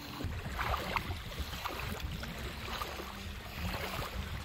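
Bangka pump boat's engine idling with a low, steady hum.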